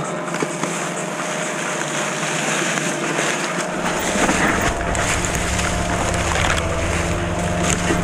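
Mountain bike rolling down a leaf-covered dirt trail: a steady rush of tyres over dry leaves and dirt with small rattles from the bike. About four seconds in, a low wind buffeting on the microphone joins.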